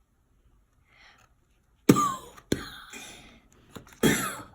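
A person coughing and clearing their throat in short, sudden bursts in a small room. The first comes about two seconds in, another half a second later, and a last one near the end.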